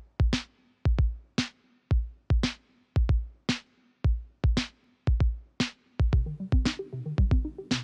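Electronic music: a steady drum-machine beat of deep kick drums about twice a second with a sharp hit about once a second. A synth bass line comes in about six seconds in.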